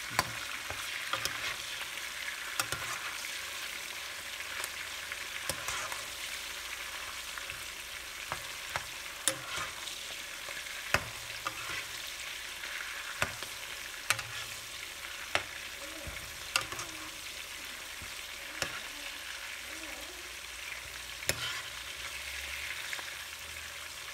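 Sliced onions and vegetables sizzling steadily in oil in a frying pan, while a spoon stirs them and knocks against the pan every second or two.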